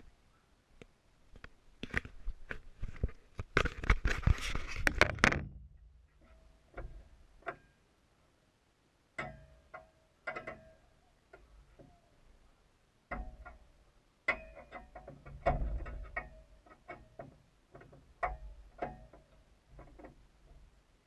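Handling noise on a small action camera as it is moved and set down: rubbing and knocks, densest about four to five seconds in. After that come scattered knocks and clatters, some with a short ring.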